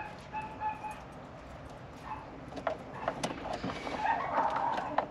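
A few short, high-pitched animal calls in the first second, over scattered clicks and a rustle of handling later on.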